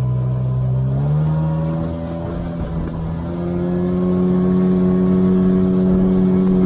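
Small outboard motor running at speed on an inflatable boat, its pitch rising about a second in and again a little after three seconds, then holding steady.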